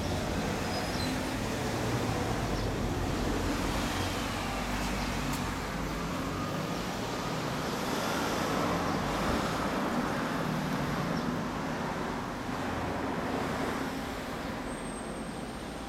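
Kawasaki ZRX1200R's inline-four engine idling steadily through a Nojima FASARM racing exhaust, with no revving. Road traffic passes behind it.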